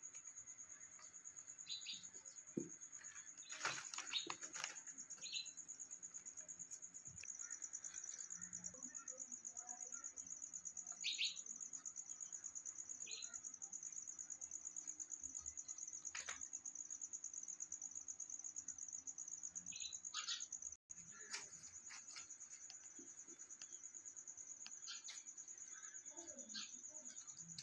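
A continuous high, rapidly pulsing insect trill, cricket-like, with short high chirps and a few soft clicks and scuffs scattered over it.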